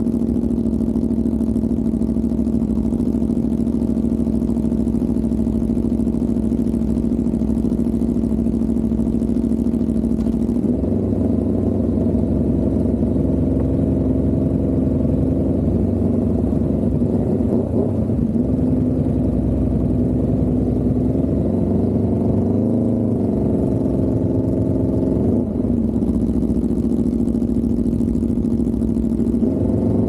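Aprilia RSV4 1100 Factory V4 engine through a Racefit exhaust. It runs steadily at low speed with wind noise, then idles from about ten seconds in with a few short throttle blips, and revs up to pull away at the end.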